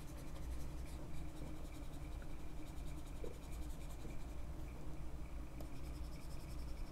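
Faint, continuous scratchy rubbing of freehand drawing strokes made on a computer input device, over a steady low electrical hum.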